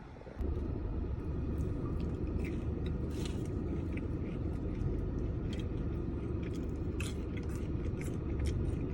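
Someone biting and chewing fried potato wedges, with soft crunchy clicks scattered through, over a steady low rumble.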